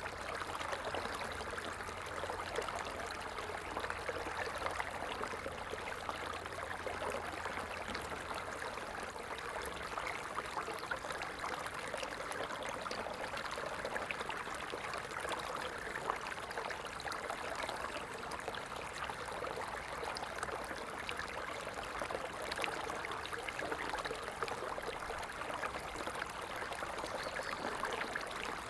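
Small stream of water flowing steadily over rocks, with many small splashes and trickles.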